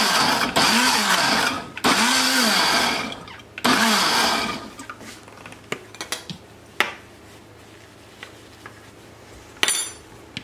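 Countertop blender pulsed in about four short bursts of a second or so, chopping canned diced tomatoes into a sauce; the motor's pitch rises and falls with each pulse. Light clicks and a knock follow near the end as the glass jar is handled.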